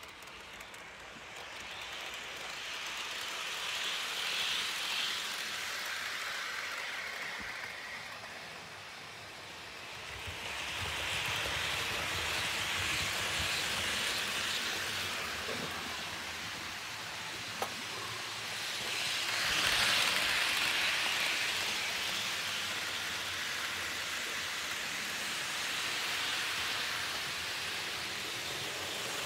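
HO-scale model TEE 'Gottardo' electric multiple-unit trains running on the layout's track: a steady whirring hiss of wheels and motors that swells each time a train passes close, about three times.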